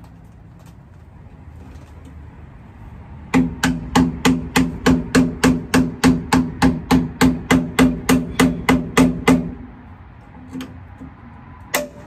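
Hammer tapping a screwdriver held against a semi truck's rear turn-signal light, about twenty quick blows at roughly three a second, each with a short metallic ring, to knock out the old light and its rubber grommet. One more single blow comes near the end.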